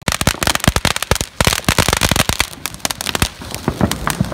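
Ground fountain fireworks spraying sparks, with rapid irregular crackling pops, many a second, over a hiss.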